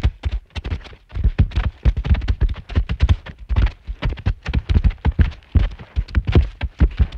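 A rapid, irregular series of knocks and thumps, several a second.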